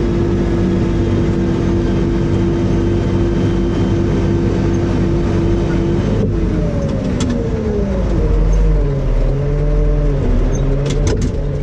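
John Deere road grader's diesel engine heard from inside the cab, running steadily at first. About six seconds in, its pitch drops and then swings up and down as the revs change. A few sharp clicks come near the end.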